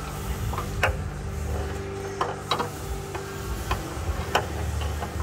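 Wrench working the downstream oxygen sensor on a car's exhaust: a handful of sharp, irregular metal clicks over a steady low hum.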